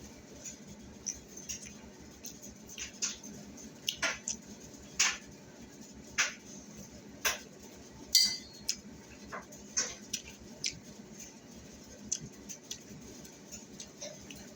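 Dishes and utensils clinking and tapping: a dozen or so light, separate knocks and clicks at irregular intervals.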